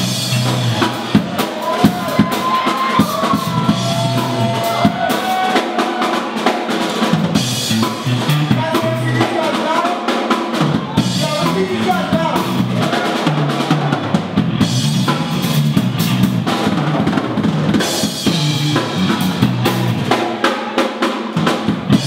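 Drum kit and electric bass playing live together, with busy snare, rimshot and bass-drum hits over a bass line; the low end drops out for a second or two a few times.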